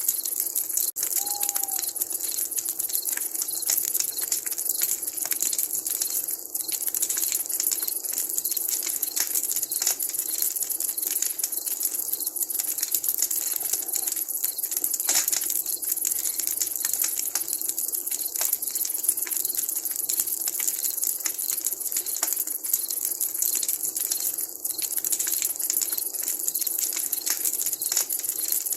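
Wood campfire crackling with many small, irregular pops over a steady high hiss. A short faint call is heard about a second and a half in.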